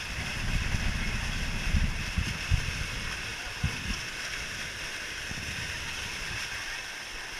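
Water churning and rushing in the start pool of a tube water slide, a steady hiss. A low rumble with a few thumps runs through the first half and dies away after about four seconds.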